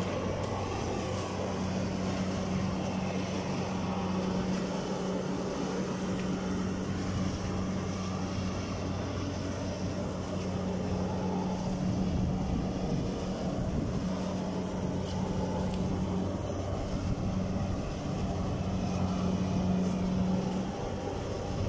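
Kubota crawler combine harvester's diesel engine running at steady high revs as it harvests, a constant droning hum; the pitch starts to drop near the end.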